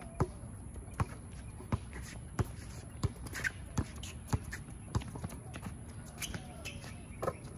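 Basketball dribbled on a hard outdoor court, the bounces coming evenly about one and a half times a second, with sneakers shuffling on the surface between them.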